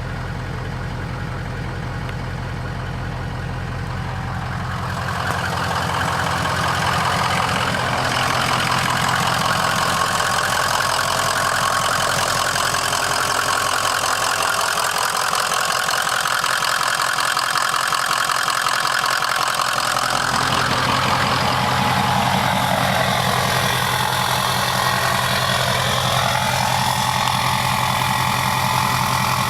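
Ford 6.0-litre Powerstroke V8 turbo-diesel with a Garrett Powermax turbo idling steadily, early after a cold start. It grows louder and brighter about five to eight seconds in.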